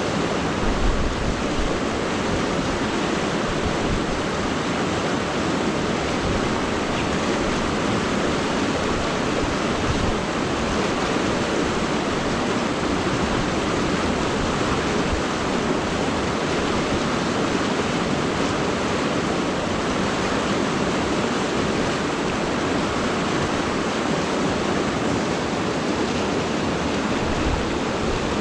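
Steady rushing of river current, an even hiss of flowing water with no change in level. A few low bumps come about a second in and near the end.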